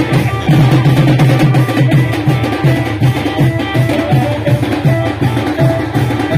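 Koraputia band-party music: drums beating a steady, fast rhythm of about three strokes a second under a melody of held notes.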